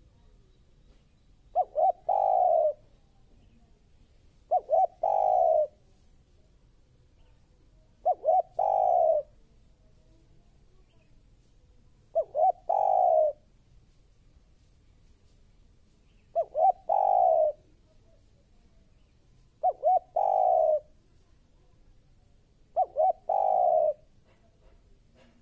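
Spotted dove cooing: seven calls about three to four seconds apart, each made of two or three quick short notes followed by one longer note.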